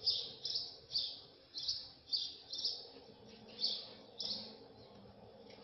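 A small bird chirping in the background: short, high chirps about twice a second, stopping about four and a half seconds in.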